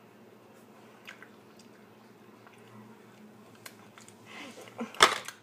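Faint wet chewing and biting of a pickled hot pepper, then a sudden loud burst about five seconds in.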